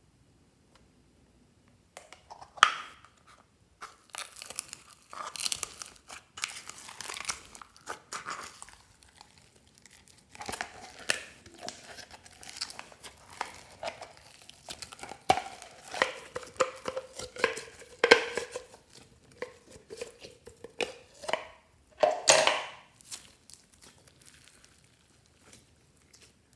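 Slime being squished and pulled apart by hand, starting about two seconds in: irregular crackles, sticky tearing and crunchy noises that keep coming until near the end.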